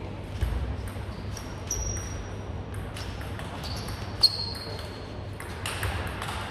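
Table tennis rally: the celluloid ball clicking off the table and the bats in quick succession, each hit short and sharp with a brief high ring, the sharpest about four seconds in.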